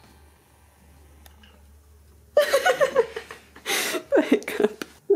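Quiet room tone for about two seconds, then a person laughing in quick pulsed bursts with a sharp breathy outburst in the middle.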